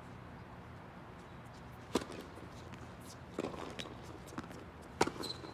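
Tennis ball being hit by rackets during a doubles rally: two sharp pops about three seconds apart, the second the louder, with fainter knocks between them.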